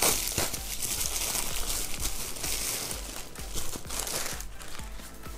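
Plastic packaging rustling and crinkling as a parcel is pulled open by hand: a grey plastic postal mailer and the bubble wrap inside it. An uneven crackling rustle, loudest at the start.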